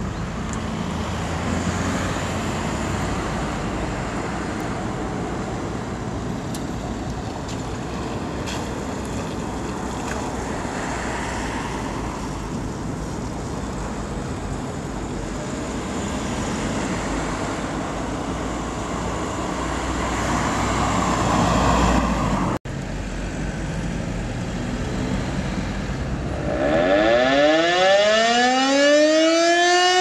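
The four bells of the Dekanatspfarrkirche Mariae Himmelfahrt (c' e' g' a', cast by Oberascher in 1948) pealing together in a continuous wash that grows louder, cut off abruptly about two-thirds of the way through. About four seconds later a civil-defense siren starts winding up, its pitch rising steeply and just beginning to fall at the very end.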